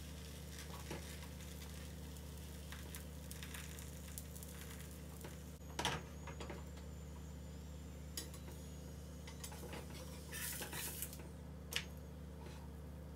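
Pita dough cooking in a nonstick frying pan on a gas stove, over a steady low hum. Spatulas tap and scrape against the pan: a sharp knock about six seconds in, a short scraping a little before the end, and a click just after it.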